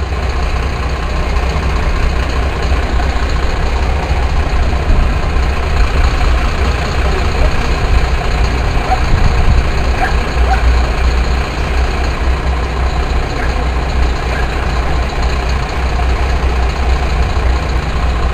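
Parked fire engines' diesel engines idling, a steady low rumble.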